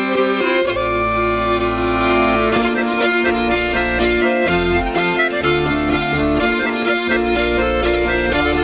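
Finnish folk instrumental played on two melodeons with viola and kantele, the melodeons carrying held chords and the tune. Low bass notes come in about a second in, and a steady rhythmic pulse of taps joins about two and a half seconds in.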